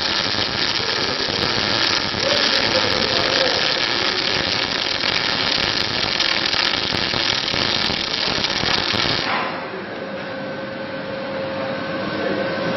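Welding machinery running: a steady, dense mechanical noise that drops to a quieter hum with a few faint steady tones about nine seconds in.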